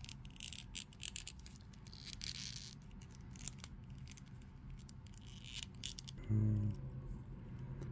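Small plastic clicks and rubbing as a plastic action figure's arm joints are worked and a plastic blaster is fitted into its hand, with a brief low hum from a voice about six seconds in.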